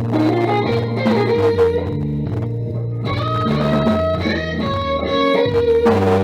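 Guitar music: plucked guitar notes, partly electric, over a bass line.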